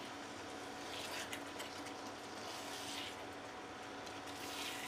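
Chicken in a wet onion-tomato masala gravy sizzling in a nonstick kadai while a silicone spatula stirs it, the stirring swelling a few times. A faint steady hum from the induction cooktop lies underneath.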